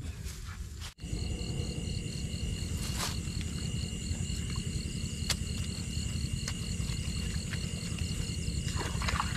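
Crickets and other night insects calling steadily in several high, even tones, one of them pulsing, over a low rumble, with a few faint clicks. The sound drops out briefly about a second in.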